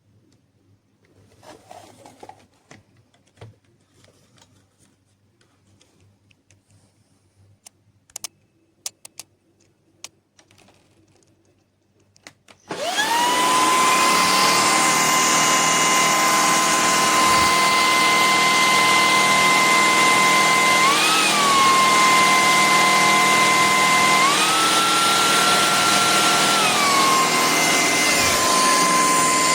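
A few faint handling clicks, then about halfway through a Shark PowerPro cordless stick vacuum switches on and runs loudly, a steady high motor whine over the rush of air. The whine rises in pitch briefly once, then steps up for a few seconds near the end and drops back.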